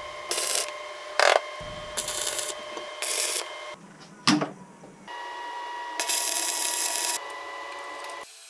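Steel parts being handled and fitted on a wooden workbench: two sharp metal clanks among short scraping and rasping noises, in choppy snatches that break off abruptly.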